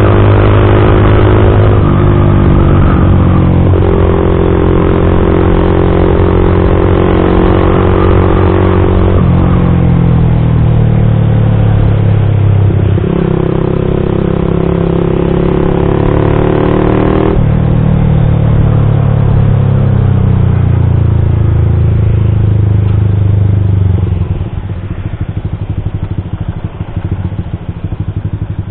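Yamaha MX King 150's single-cylinder four-stroke engine through a custom aftermarket exhaust, riding under throttle with its pitch jumping to a new level several times as the gears change. Near the end the throttle closes and the exhaust drops quieter.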